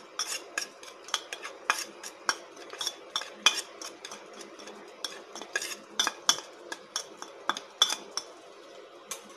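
Steel spoon clinking and scraping against a small steel plate while mixing dry spice powders, in quick uneven taps about three a second that stop near the end.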